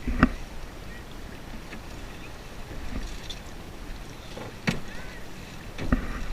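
Canoe being paddled, with a steady wash of noise and a few sharp knocks: one just after the start, one in the middle and one near the end.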